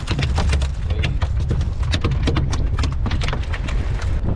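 Wind rumbling on the microphone, with a rapid run of irregular clicks and taps while a hooked fish is brought in to the boat on rod and reel.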